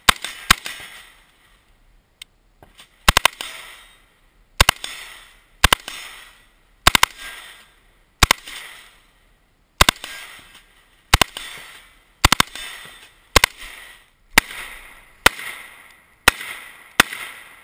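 Rifle shots fired in quick doubles, a pair or single shot about every second, each cracking sharply and trailing off in echo.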